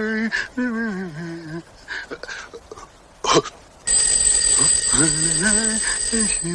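Electric doorbell ringing steadily for about two and a half seconds, starting about four seconds in. Before and under it, a man hums a wavering tune, and a short sharp click comes just before the ringing.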